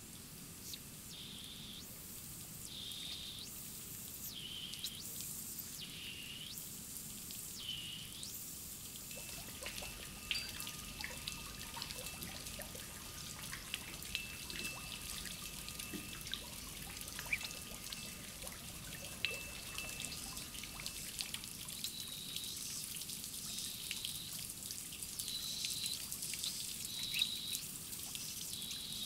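Thin fountain jets trickling and splashing into a shallow garden pond. A bird chirps a short call over and over in the first few seconds and again near the end.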